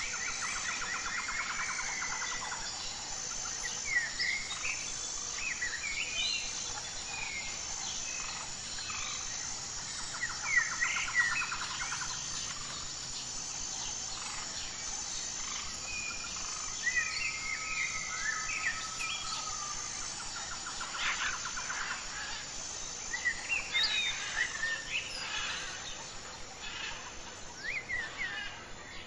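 Several birds singing and chirping, with short rapid trills now and then, over a faint high note pulsing about once a second.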